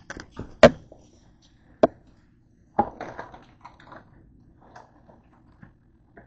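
A cardboard cookie box handled and knocked against a countertop: three sharp knocks, the loudest about half a second in, then softer rustling and taps of the box.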